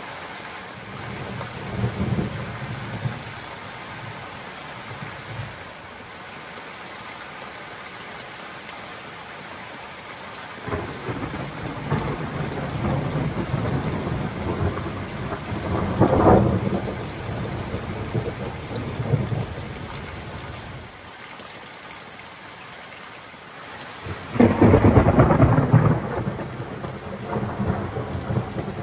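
Thunder rumbling over steady rain: a short rumble about two seconds in, a long rolling one from about ten to twenty seconds in that swells near the middle, and the loudest peal near the end.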